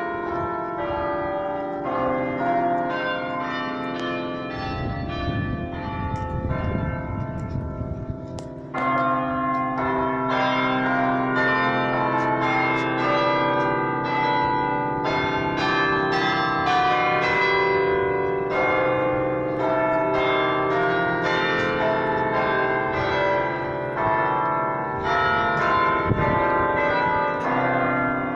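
An 18-bell church carillon playing a tune: tuned bells struck one after another in quick succession, their tones ringing on and overlapping. The playing grows louder about nine seconds in, and a brief low rumble sits under the bells a little before that.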